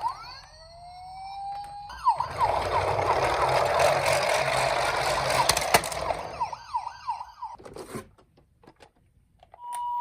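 Toy emergency vehicles' electronic sirens. A tone winds up, then comes a few seconds of loud clattering noise with fast yelping glides, then falling wail sweeps that die away about eight seconds in. Just before the end a two-tone hi-lo ambulance siren starts.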